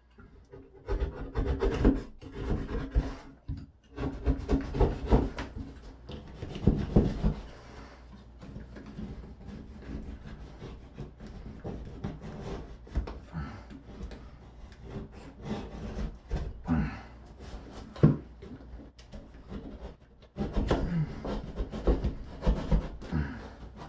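Hand tool scraping and rasping at drywall in repeated strokes, as the damaged section of wall is cut and trimmed out. It comes in three busy runs, near the start, around five seconds in and near the end, with lighter scraping between.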